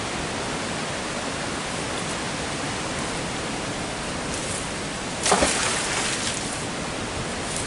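Steady rush of water from a weir, with one splash about five seconds in as a magnet-fishing magnet on a rope lands in the water.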